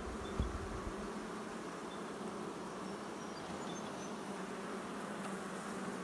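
Steady buzzing hum of a honeybee colony swarming over an opened hive, the bees flying hard.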